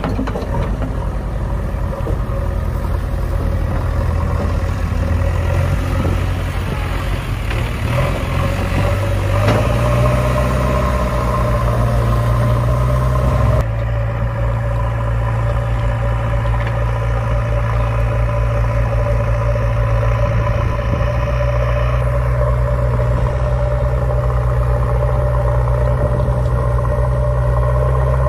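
Steady engine running at idle, an engine sound effect for a heavy machine. Its tone changes abruptly about halfway through.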